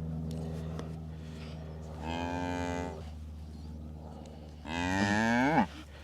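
Dexter cattle mooing twice: a shorter, level-pitched moo about two seconds in, then a louder moo near the end whose pitch rises before it breaks off. A steady low hum runs underneath.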